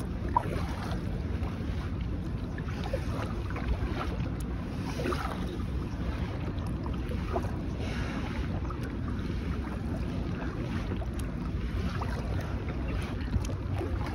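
Wind buffeting the microphone as a steady low rumble, with soft swishes of kayak paddle strokes in the water every two to three seconds and a few light knocks.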